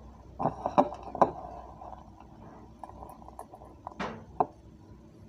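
Fingers tapping and scraping in a stainless steel bowl while pressing filling into mushroom caps: a quick cluster of light knocks about half a second to a second in, then two more near four seconds.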